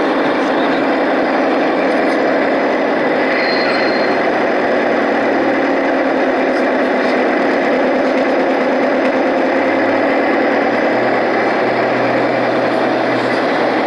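Garden railway diesel-style locomotive running slowly close by, a steady hum of its drive motor and gears.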